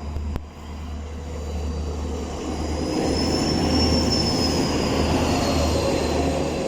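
Pair of SNCF BB 67200 diesel locomotives running in multiple, passing by and growing louder to a peak about four seconds in. A high whining tone rises and then falls in pitch as they go past.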